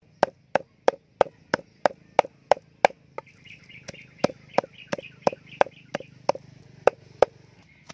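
A cleaver chops steadily through raw fish on a thick wooden chopping block, about three sharp chops a second with a brief pause partway through, mincing the fish to a paste for fish balls. Faint chirping runs in the background through the middle.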